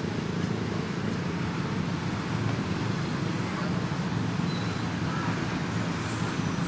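Steady low rumble with a faint droning hum.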